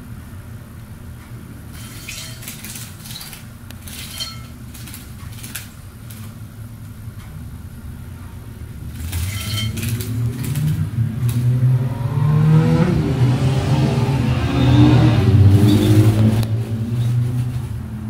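Slowed-down sound of a canary splashing in a shallow bowl of water, heard as a deep, shifting rumble over a steady low hum. It grows much louder about halfway through, with scattered sharp clicks before that.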